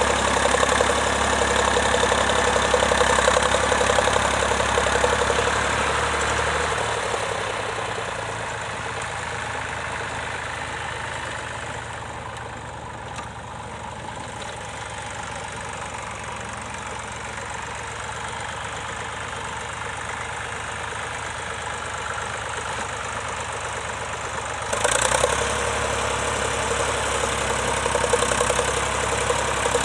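Vintage tractor engine running steadily, loud at first and fading away over a few seconds, then suddenly loud again near the end.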